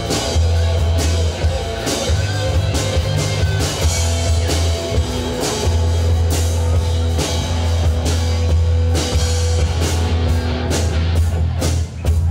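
A live rock band playing: electric guitars over a drum kit, with sustained deep low notes and steady drum hits that get busier near the end.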